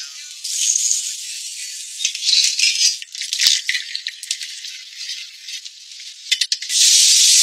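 Hot oil sizzling and crackling in a wok as chunks of meat fry, rising and falling in surges and loudest near the end.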